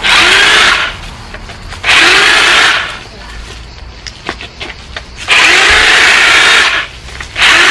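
Corded electric hedge trimmer switched on and off in four short bursts of about one to one and a half seconds each. Each burst opens with a rising whine as the motor spins up to speed, and the motor and blade buzz loudly until the switch is released.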